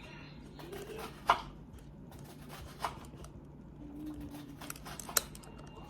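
Small hard clicks and taps of plastic toy parts and screws being handled during reassembly: three sharp clicks, the loudest about a second in, another near the end.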